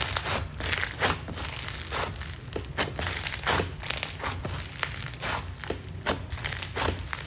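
Crunchy microfloam slime being squeezed and kneaded by hand, giving a run of irregular crackles and small pops as the foam beads burst.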